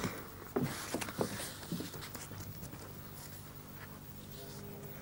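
Horse's hooves knocking and scuffing as it pulls back sharply from the horse float: a quick cluster of sharp knocks in the first two seconds, then lighter shuffling.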